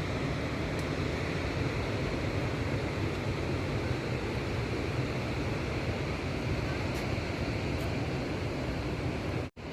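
Steady rushing noise, cutting out for a moment near the end.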